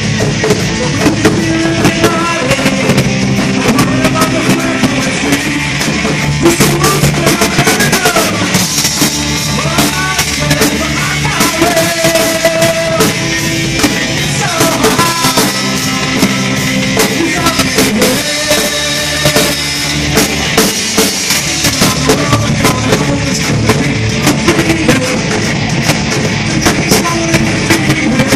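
Live rock band playing loud: drum kit, electric guitar and keyboard.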